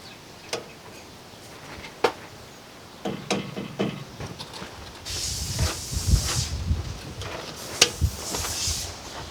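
Light metal clicks and taps as new brake hardware clips are fitted onto a truck's rear caliper bracket, several in quick succession a few seconds in. A hiss with a low rumble follows in the middle, and after a loud click near the end there is a second, shorter hiss.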